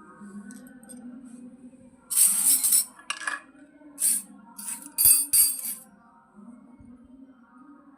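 Small miniature toy kitchen pieces being handled, with about five short clattering, rustling noises between about two and six seconds in, over soft background music.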